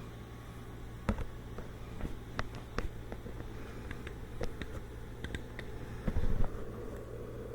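Scattered knocks and clinks of metal parts and tools being handled on a workbench, over a steady low hum; the loudest knocks come in a short cluster about six seconds in.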